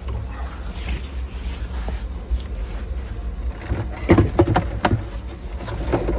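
Knocks, clicks and light scrapes from handling a tube radio chassis, in clusters about four seconds in and again near the end, over a steady low hum.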